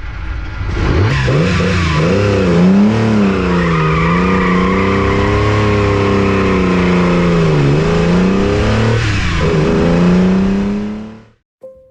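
Nissan Skyline C10 'Hakosuka' L-series straight-six on Weber carburettors being revved, its pitch swinging up and down through repeated throttle blips before settling into a steady high rev. The sound cuts off suddenly near the end.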